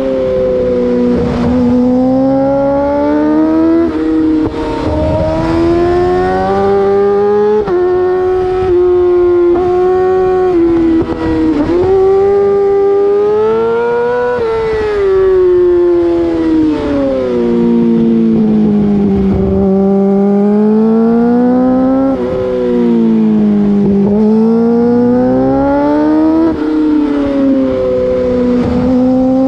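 2008 Yamaha R6's inline-four engine through an Akrapovic full race exhaust system, revving hard. Its pitch climbs and drops every few seconds as the throttle is opened and closed through the bends, with brief dips in loudness.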